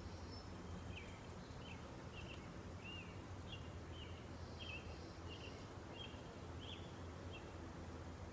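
A songbird singing a string of short chirping notes, over a steady low hum.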